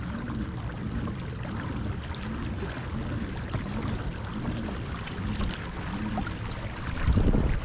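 Pedal drive of an Old Town Predator PDL kayak whirring, its pitch rising and falling with each pedal stroke about one and a half times a second, over water rushing along the hull. A louder low rumble comes near the end.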